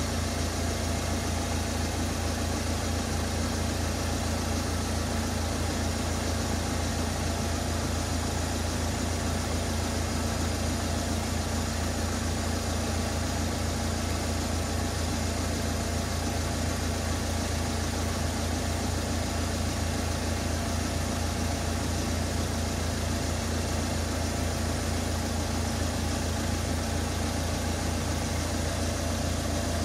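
A road vehicle's engine idling steadily with a low, even hum.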